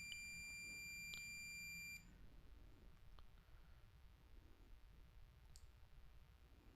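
Multimeter continuity beep: one steady high tone lasting about two seconds, then cutting off suddenly, followed by near silence with a faint click or two.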